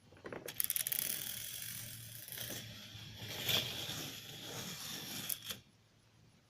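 K'nex toy roller coaster's geared motor and plastic lift mechanism running with a ratcheting, clattering rattle. It starts about half a second in with rapid clicks, carries on steadily with a few sharper clicks, and cuts off suddenly after about five seconds.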